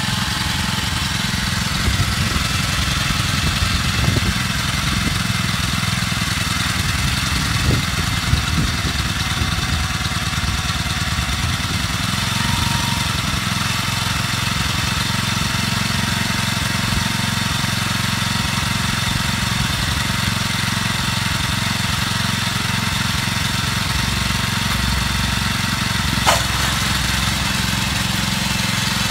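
Small Robin 3.5 hp engine of a PR15 walk-behind tiller running steadily, with one sharp click near the end.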